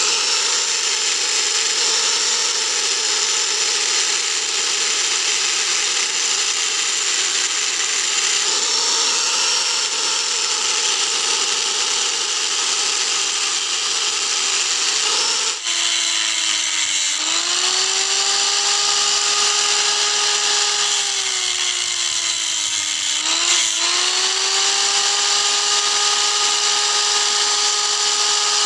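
Electric angle grinder with an abrasive disc cutting into the rusty steel plate of an old speaker magnet, the motor running with a steady grinding noise. About halfway through the sound briefly drops out, then the motor whine's pitch sags twice as the disc is pressed into the cut and climbs back each time it is eased off.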